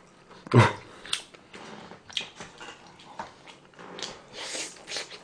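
Close-miked eating sounds: a brief voiced hum falling in pitch about half a second in, then scattered wet mouth clicks and chewing as a glazed sausage is bitten and eaten.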